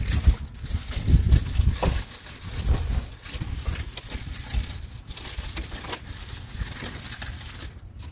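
Rustling and light knocks of packaged food and bags being handled, over a gusty low rumble that is strongest in the first few seconds.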